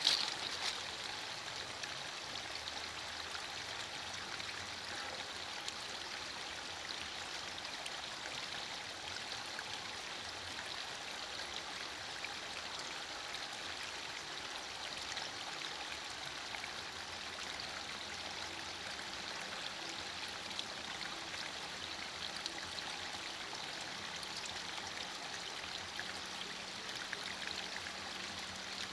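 Heavy rain falling steadily through broad leaves, an even hiss of rain with scattered ticks of single drops striking and dripping from the leaves.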